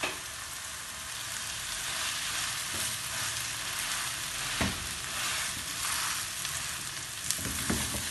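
Boiled, shredded chicken and fried onions sizzling in a non-stick frying pan while a wooden spatula stirs and scrapes through them, with a few knocks of the spatula against the pan partway through and near the end.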